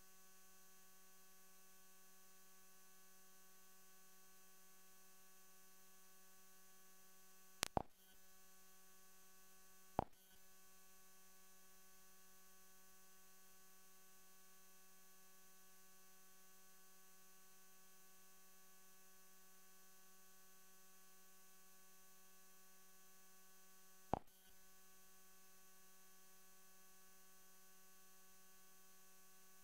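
Near silence: a faint, steady electrical hum with a buzzy, many-toned edge, broken by a few sharp clicks, two close together about a quarter of the way in, one more a couple of seconds later, and a last one late on.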